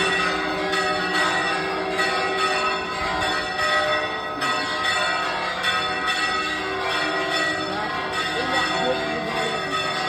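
Church bells ringing, several bells of different pitch struck again every second or two, their tones overlapping and ringing on.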